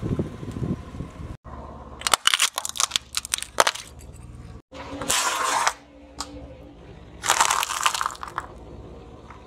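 A car tyre crushing objects on pavement in quick succession: a low rumble first, then a fast run of sharp cracks as a clear plastic case of paint pots shatters, then bursts of crunching as a pile of crunchy corn snacks is flattened.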